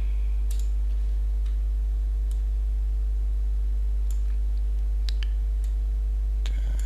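A steady low electrical hum with a ladder of overtones, and several faint computer mouse clicks scattered through it.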